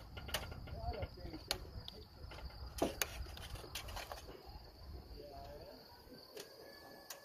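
Crickets chirping in a steady, high, even trill, with a few sharp clicks and knocks scattered through it, the loudest about three seconds in.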